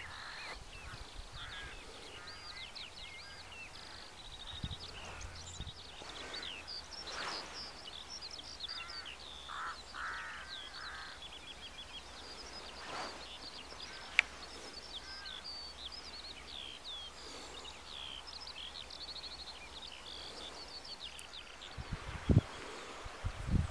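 Wild birds singing and calling over open farmland: many high chirps and warbling trills throughout, with a few lower calls around the middle. Low thumps come in near the end.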